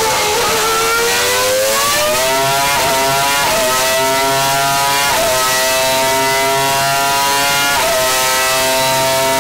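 Renault RS25 3.0-litre V10 Formula 1 engine running on a test bench through a race-simulation programme. Its pitch dips, climbs steeply for about two seconds, then holds high with several brief dips and recoveries.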